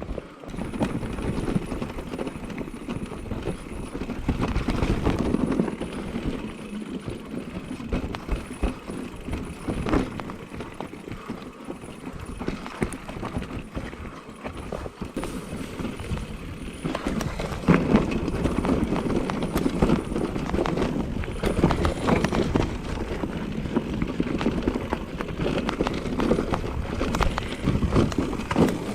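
Mountain bike descending a trail: tyres rolling and skidding over dirt, rocks and roots, with the bike's chain and suspension rattling and knocking over the bumps. It gets louder and rougher from a little past halfway.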